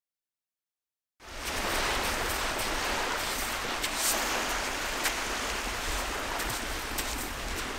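Silence for about the first second, then a steady rushing noise of gentle surf on a sandy beach.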